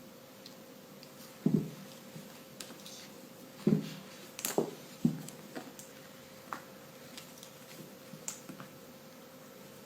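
Snoring heard as a few short, irregular low snorts, the loudest about a second and a half in and nearly four seconds in, with small clicks and mouth noises between them.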